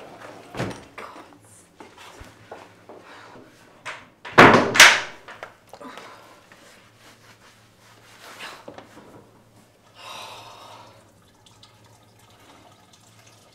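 Scattered knocks and thuds in a small room, the loudest a double thud about four and a half seconds in, over a low steady hum.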